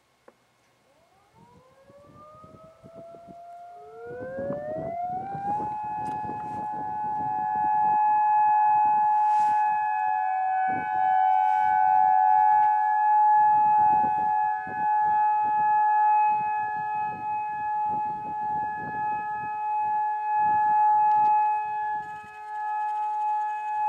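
Federal Signal tornado sirens winding up one after another, the first about a second in and the second about four seconds in. Each rises in pitch and settles into a steady, multi-tone wail that holds, with gusty low rumbling noise underneath.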